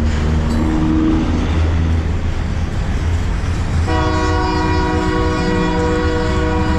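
BNSF locomotive horn sounding a chord of several steady tones, starting about four seconds in, over the steady low rumble of the passing train.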